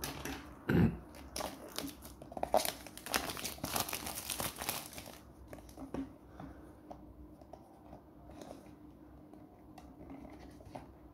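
Plastic wrapping crinkling and tearing as it is pulled off a small cardboard box, busiest over the first five seconds, then fainter rustling and handling of the box.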